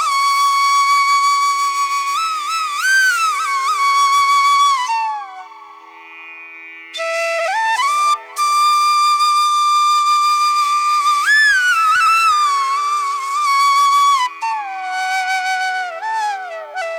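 Background music: a solo flute-like melody of long held notes that bend and slide, in two phrases with a short break in the middle.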